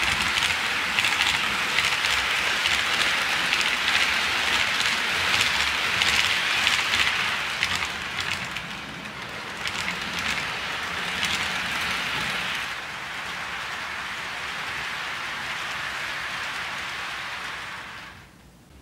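HO scale model freight train rolling over Kato Unitrack and through a 90-degree diamond crossing: a dense, rain-like rattle of small metal wheels on the rails, with clicks as wheels cross the diamond. It gets quieter about thirteen seconds in and cuts off near the end.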